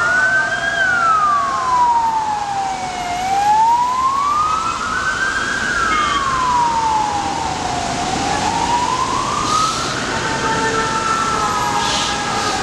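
An emergency vehicle siren in a slow wail, its pitch rising and falling about every five seconds and levelling off near the end, over the steady noise of city traffic.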